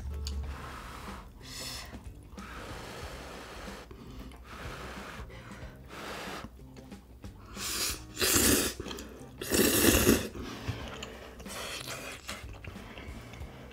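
A person slurping instant-ramen noodles, with two loud slurps about eight and ten seconds in and smaller slurps and chewing between them.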